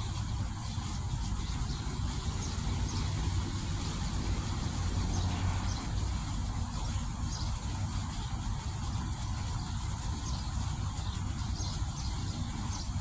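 Outdoor fountain's water jets splashing steadily over a constant low rumble.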